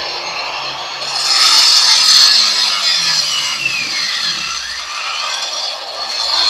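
Makita marble saw (handheld diamond-blade cutter) running under load as it cuts into a concrete floor, loudest early on, with its whine dipping in pitch in the middle and recovering. The saw is powered through a homemade 12 V battery inverter.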